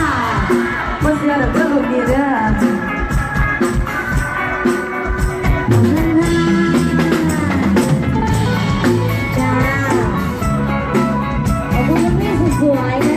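Live band music: a drum kit keeping a steady beat under a gliding, wavering melody line, with some singing.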